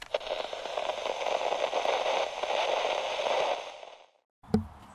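Crackling static interference sound effect, a dense hiss and crackle that cuts off abruptly just before four seconds in, followed by a single sharp click near the end.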